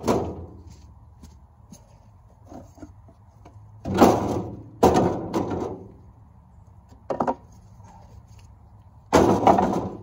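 Scrap wooden boards clattering as they are picked up and tossed into a wheelbarrow, about five times.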